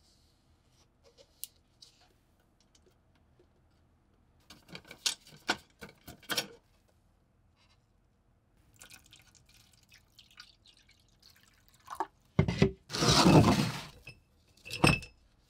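Work sounds with a plastic tub holding the lock parts in liquid rust converter: a run of small clicks and splashes, then a dull thump and a louder, second-long rush of liquid and plastic near the end.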